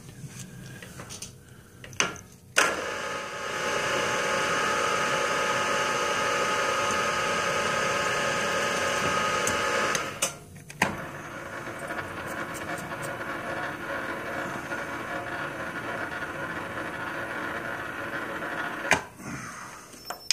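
Precision Matthews PM-932M milling machine's spindle running a small drill bit in its chuck with a steady whine, starting with a click about two and a half seconds in. It dips briefly near the middle, runs on slightly quieter, and ends with a couple of knocks near the end.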